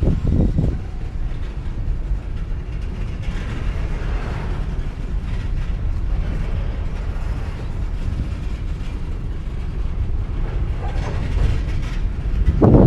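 Empty coal train of open hopper cars rolling slowly with a steady low rumble. There are a few knocks at the start, and a run of bangs begins near the end as slack runs through the couplers.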